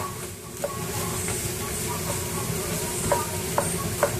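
Bean sprouts, carrot and onion sizzling in a frying pan while a wooden spatula stirs them, knocking sharply against the pan a few times.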